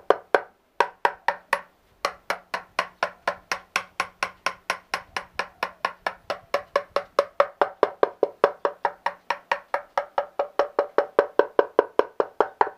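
Steady tapping on the wall of a large turned wooden vessel on the lathe, about five knocks a second, each with a short hollow ring. The wood is being sounded to tell solid wall from wood that an inclusion has left loose.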